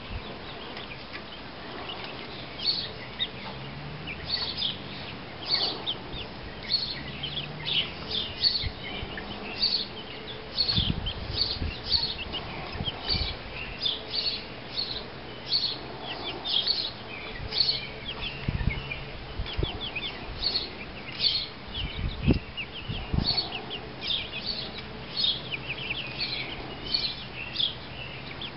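Young Ameraucana chicken peeping: short, high peeps repeated about once or twice a second, with a few low thumps near the middle.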